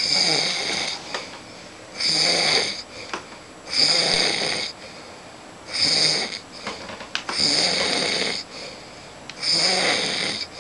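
A man snoring loudly, six snores in a steady rhythm about every two seconds, with quiet pauses between them.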